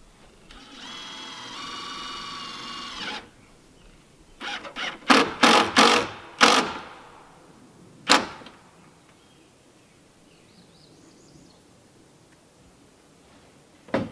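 Cordless drill-driver running steadily for about three seconds as it drives a screw, followed a second later by a cluster of five or six short, loud, sharp bursts. A single sharp knock comes a little later, and another near the end.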